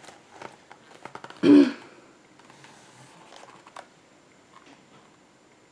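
Light clicks, taps and rustles of a hardcover picture book being handled and held up to the camera, with one louder brief sound about one and a half seconds in.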